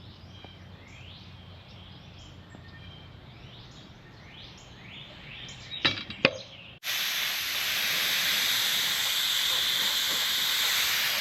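Paint being sprayed: a steady hiss starts suddenly about seven seconds in and keeps going. Before it, two sharp clicks, and faint bird chirps in the background.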